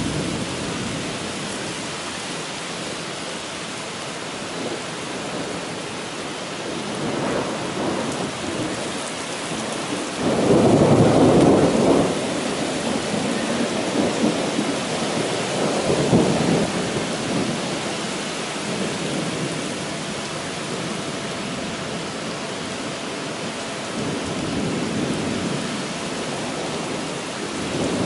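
Heavy rain pouring down steadily, with thunder rumbling: a loud rumble of about two seconds comes roughly ten seconds in, and a shorter one a few seconds later.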